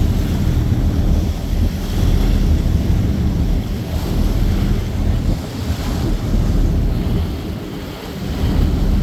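Wind buffeting the microphone on a moving boat, a gusty low rumble over the rushing hiss of water churned up along the hull. The rumble eases briefly near the end.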